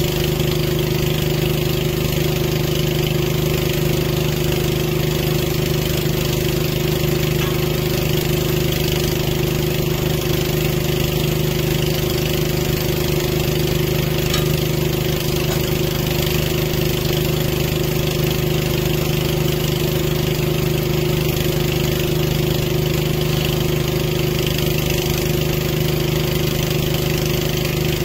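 Towable boom lift's engine running steadily at one speed, a constant drone that does not change in pitch.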